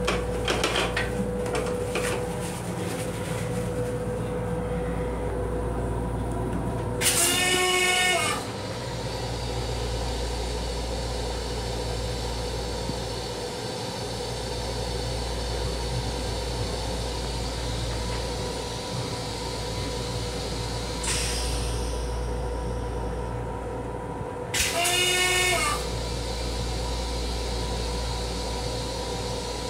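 Metro-North M7 electric railcar running, heard inside its small restroom: a steady low rumble with a constant hum. A horn sounds briefly twice, about 7 seconds in and again about 25 seconds in. Toilet paper rustles as it is pulled in the first couple of seconds.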